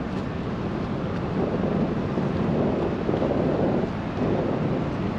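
Steady rumbling noise of wind on the microphone over the engines of the Aranui passenger-cargo ship. The ship is manoeuvring close by while it sets its anchor.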